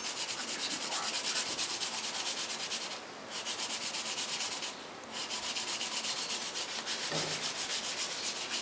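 Bone-dry PMC silver metal clay ring being sanded on the inside against a roll of sandpaper: quick, even back-and-forth scratching strokes, about five or six a second, broken by two short pauses about three and five seconds in.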